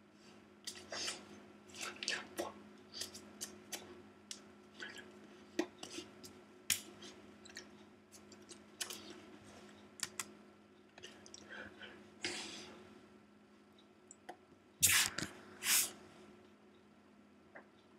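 Faint scattered clicks, taps and rustles over a low steady hum, with two louder rustling noises about fifteen seconds in.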